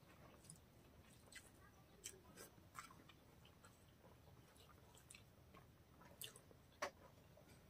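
Faint eating sounds: scattered soft wet clicks of chewing and of fingers mixing rice and curry on a banana leaf, with one sharper click near the end.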